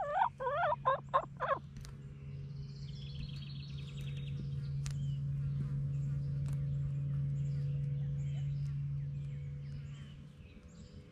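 A chicken calling: a quick run of four or five loud, warbling squawks in the first second and a half, followed by a short, fast, high trill. A steady low hum then swells through the middle and fades near the end.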